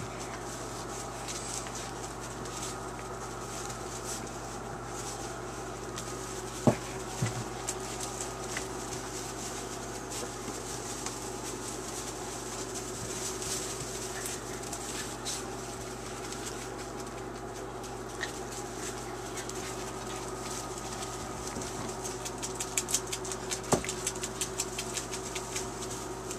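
Young puppies scuffling and playing in wood-shavings bedding, giving scattered light taps and rustles and a sharp click now and then, with a denser flurry of taps near the end. A steady hum runs underneath.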